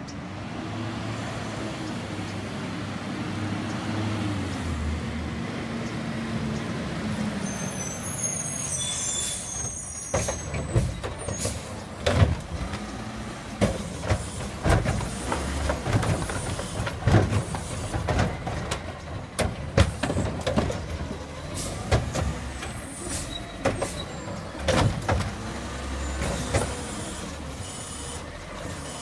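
Front-loading garbage truck with a Curotto-Can arm pulls up with its diesel engine running and lets out a hiss of its air brakes about eight seconds in. The arm then lifts and tips a yard-waste cart, with many sharp clanks and bangs as the cart is emptied over the hopper and the engine keeps running.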